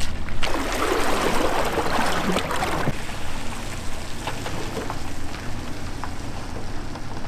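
Small boat's motor idling with a steady low hum, while water churns and splashes along the hull, loudest for the first three seconds and then easing.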